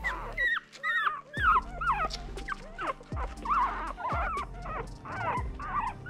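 Newborn Miniature Australian Cattle Dog puppies whimpering and squealing: many short, high, squeaky cries, mostly falling in pitch, two or three a second.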